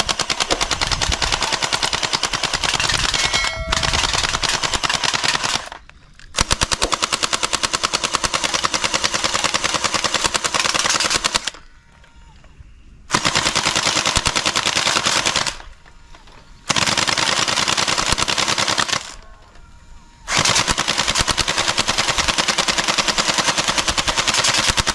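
Toy rifles firing full-auto in five long bursts of rapid shots, with short pauses between the bursts.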